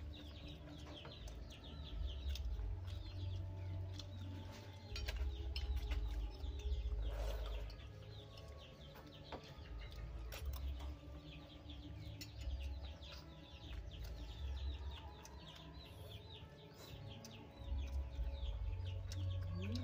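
Chickens clucking, with many quick high chirps throughout and a low rumble underneath.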